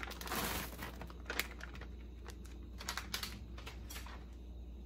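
Plastic bag of frozen diced sweet potatoes rustling as the cubes are tipped into a pan of curry sauce: a short burst of rustling at the start, then scattered light clicks and taps.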